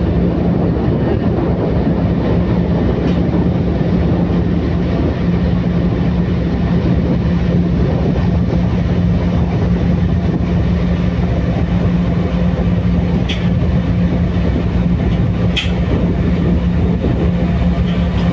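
Ferry engine running steadily: a loud, even drone with a constant low hum. A few short sharp clicks sound in the second half.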